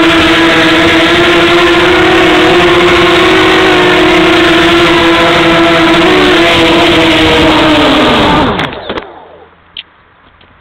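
A small motor running close to the microphone at a steady high pitch, then winding down with a falling pitch and stopping about eight and a half seconds in. A few faint clicks follow.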